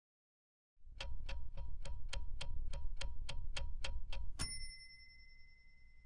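Sound-design sting: a low rumble under steady, evenly spaced ticks about three a second, then a single bright ding that rings on and slowly fades.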